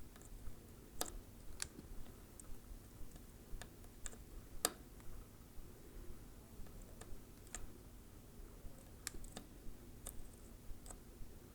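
Faint, irregular small clicks and taps from hand-soldering work on a small circuit board, one a little louder about four and a half seconds in.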